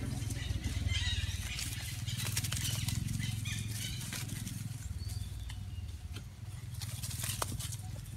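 Young macaques wrestling on dry leaves: scuffling and rustling with many small clicks and a few brief squeaks. Under it runs a low, steady rumble that fades away after about six seconds.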